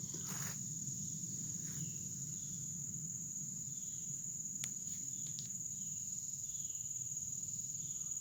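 A steady, high-pitched insect chorus of trilling crickets, with a few faint short bird calls and a single brief click partway through.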